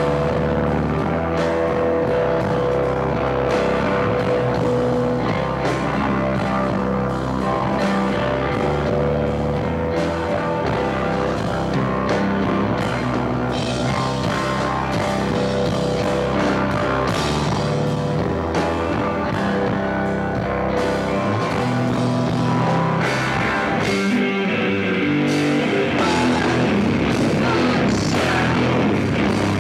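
A rock band playing live: loud electric guitars and a drum kit, recorded from the crowd. The low end drops away for a couple of seconds about three-quarters of the way through, then the full band comes back in.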